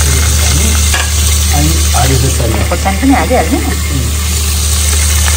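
Vegetables sizzling as they are stir-fried in a steel wok, with a metal spoon scraping and knocking against the pan, over a steady low hum.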